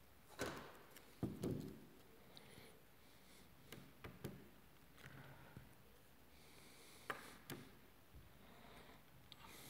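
Faint handling noises of plasticine figures on a board: a few soft knocks and rustles as they are picked up and turned in the hands, the loudest knocks about a second in.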